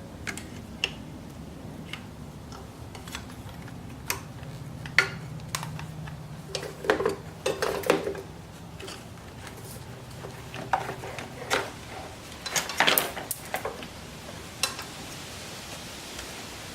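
Irregular clinks, clicks and clatters of hand tools and loosened motorcycle tail-section parts being handled, in bunches, most of them about five to eight seconds in and again around eleven to thirteen seconds.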